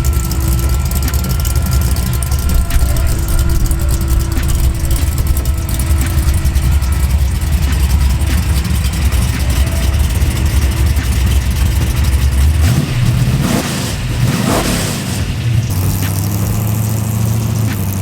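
Fox-body Mustang's engine running steadily, revved up and back down a couple of times about thirteen seconds in, then settling again.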